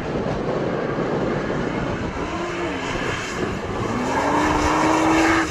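Sports car drifting on a wet race track: its engine note rises twice over a loud, steady rush of tyre and road noise.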